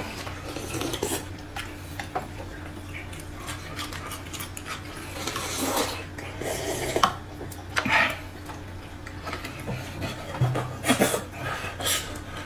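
Two people eating noodle soup: slurping and sipping broth, with chopsticks and a plastic spoon clicking against bowls and a noodle cup. The loudest slurps and clicks come about halfway through.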